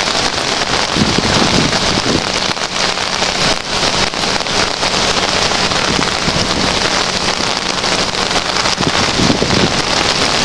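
Steady hiss of heavy rain mixed with the rush of a flooded drainage creek running in rapids.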